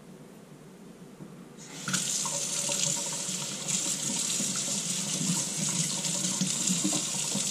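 Water tap running into a sink: the faucet comes on about two seconds in, runs steadily, and shuts off abruptly at the end.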